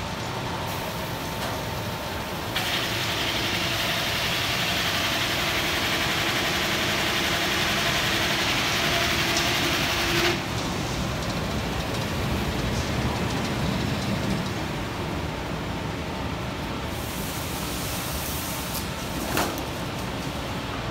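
Steady din of running woodworking press-line machinery. A louder hiss joins a couple of seconds in and cuts off sharply about halfway through. A single sharp knock sounds near the end.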